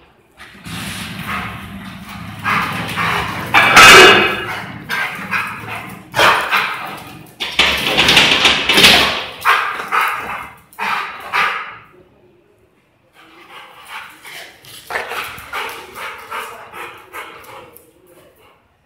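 Young Rottweiler barking repeatedly at a stranger at the gate: territorial warning barks, meant to scare off an arriving delivery man. The barks come in dense volleys, loudest in the first half, then pause briefly about twelve seconds in before a run of softer barks.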